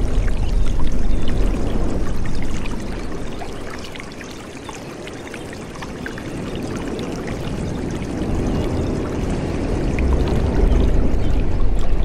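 A stream's water flowing and splashing, loud at first, easing off in the middle and swelling again near the end.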